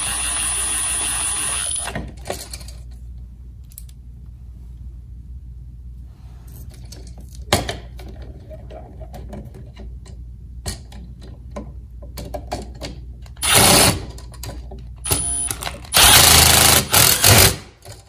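Milwaukee Fuel brushless cordless driver running in short bursts to drive the terminal screws of an electrical outlet, with a high motor whine. It runs for about two seconds at the start, then three more times near the end, the last run the longest. Small clicks and handling knocks fall in between.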